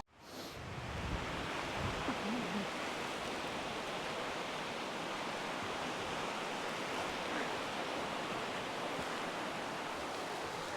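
Steady rushing outdoor noise of sea surf and wind, fading in after a brief cut at the start.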